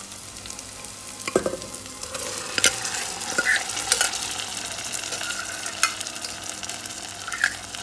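Tomato-onion masala sizzling in oil in a metal pot as cooked moong dal is added and stirred in. There are several sharp clicks of a steel spoon against the pot.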